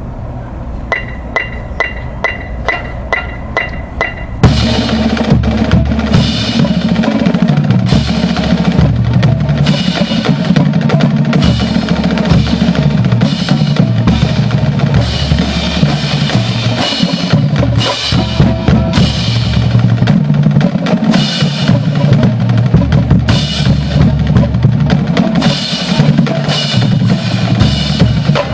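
A steady click count, about two and a half a second, then about four seconds in a full marching drumline comes in loud and together: snare drums, tenor drums, Pearl marching bass drums and cymbals playing a fast, dense exercise.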